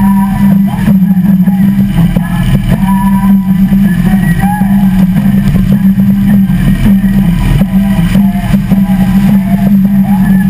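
Harley-Davidson V-twin motorcycle engines idling with a loud, steady low rumble.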